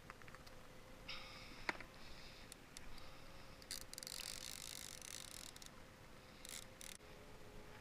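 Fishing rod and reel handled while a fish is being played: scattered faint clicks, one sharp click a little under two seconds in, then a couple of seconds of hiss, over a steady faint hum.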